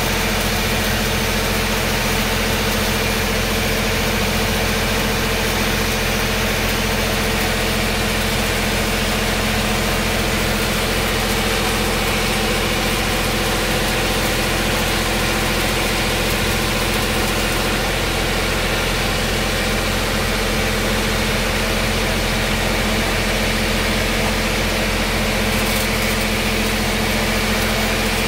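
Shielded metal arc (stick) welding on a steel pipe joint: the arc crackles and hisses steadily. A steady engine drone runs under it.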